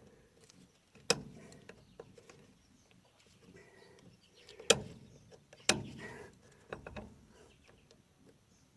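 Sharp metal clanks and clicks from tools working the connector link of a baler's steel roller chain: one loud clank about a second in, two more around the middle, and lighter clicks between.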